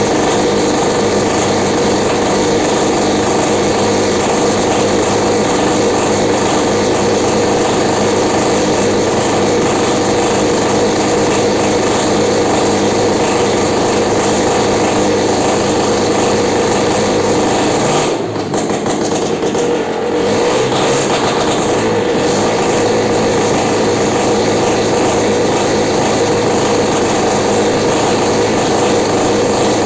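Belarus MTZ-52 tractor engine running steadily at its first start after restoration, with a short dip in level about two-thirds of the way through.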